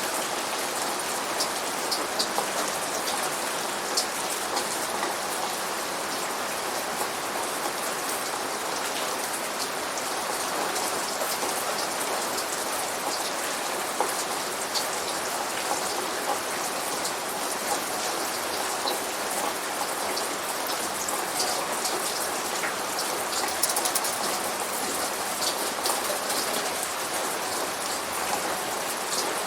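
Steady, heavy rain falling on a hard surface, with sharp ticks of single drops scattered through it: the simulated rainstorm of a Rainforest Cafe restaurant.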